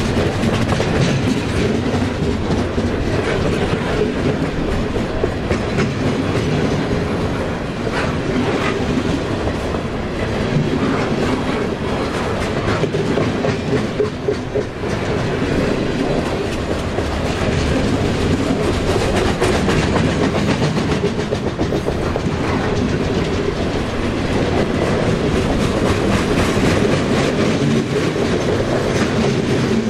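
Freight train cars rolling past at steady speed, their steel wheels clacking over the rail joints.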